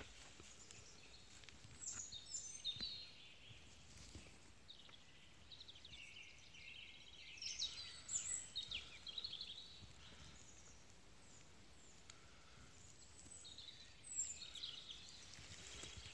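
Songbirds singing faintly in woodland: several bursts of high chirping and trilling phrases, the loudest about two, eight and fourteen seconds in, with a few soft footfalls on the forest floor.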